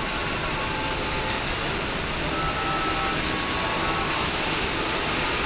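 Steady din of a car assembly plant floor: machinery and line equipment running, with brief faint tones coming and going.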